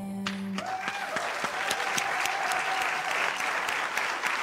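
Studio audience applauding, starting about half a second in.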